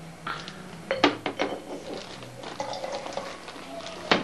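Glass tumblers and a glass water jug being handled on a table: a few quick glass clinks and knocks about a second in, and a louder knock near the end.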